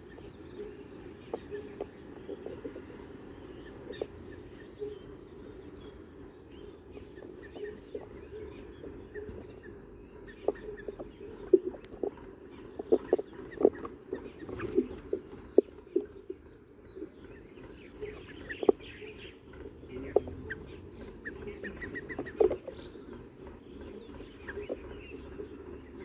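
Birds calling, with short chirps here and there and a steady clucking-like chatter low down, broken by a scatter of sharp taps, most of them in the middle and later part.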